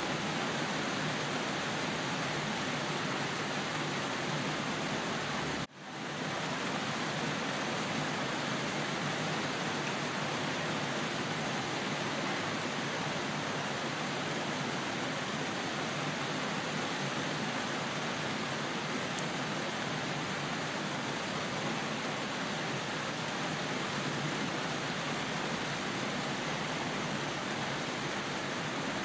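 Steady rainfall, an even hiss without thunder. About six seconds in it cuts out to near silence for a moment, then fades back up to the same steady level.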